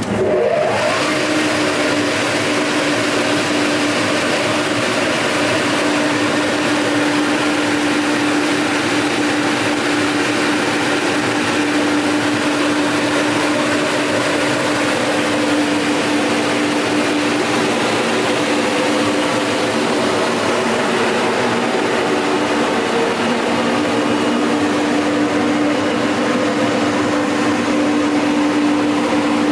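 Höcker Polytechnik centrifugal extraction fan running at steady speed: a loud, even rush of air with a steady hum.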